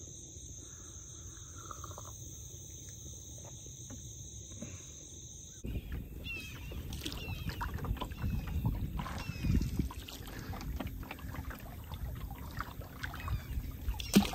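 Insects droning steadily in a high, even tone. About six seconds in this cuts off abruptly and gives way to wind buffeting the microphone and water slapping against the canoe's hull, with small knocks and one sharp knock near the end.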